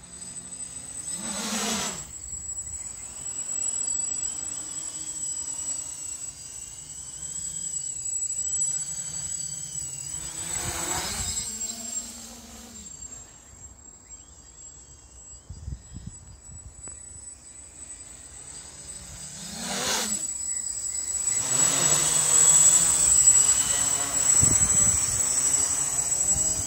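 Quadcopter's brushless motors (Sunnysky 800kv) and 11-inch carbon props humming overhead. The drone sound swells and fades several times as it moves about, then grows loudest near the end as it descends close.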